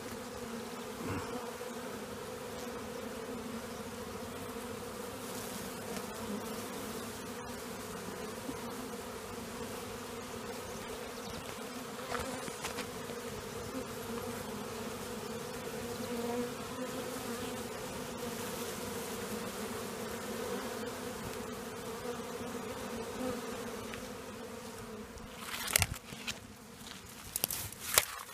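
Honeybee swarm buzzing: a steady hum from many bees clustered on and flying around a hive box. A few loud bumps and rustles come near the end.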